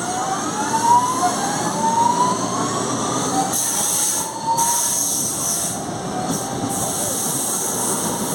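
Alstom-built CPTM Series 2070 electric multiple unit running, its traction motors giving a whine that rises in pitch over the first few seconds as the train picks up speed, then holds steady over the rumble of the wheels on the rails.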